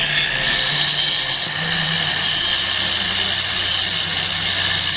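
Power tool running steadily with a high, even whir, used on the plastic headlight washer actuator mountings during the repair.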